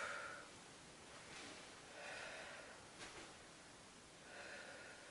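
Faint breathing, with a soft breath about every two seconds, and a small click about three seconds in.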